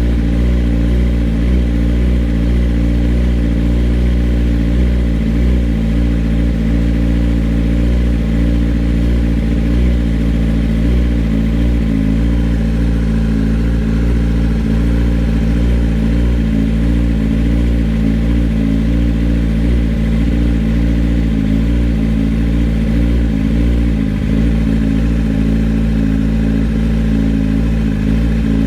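2021 Kawasaki ZX-10R's inline-four engine idling steadily through an M4 aftermarket exhaust, warming up after a cold start.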